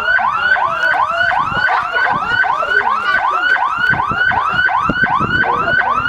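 Siren sounding in a fast yelp: rapid rising-and-falling sweeps, about three and a half a second, continuous and loud.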